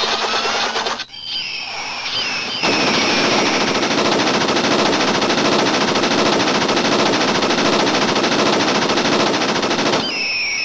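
Hawk Gatlinger full-bullet sound effect: a short charge with sliding whistles, then about seven seconds of unbroken rapid gatling-gun fire, with whistling tones again near the end.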